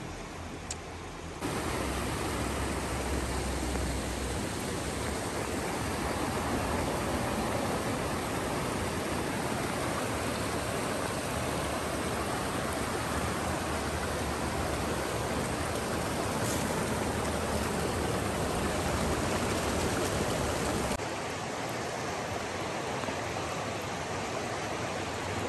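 Creek water rushing over rocks in a shallow riffle, a steady rushing noise. About twenty seconds in it drops abruptly to a quieter flow.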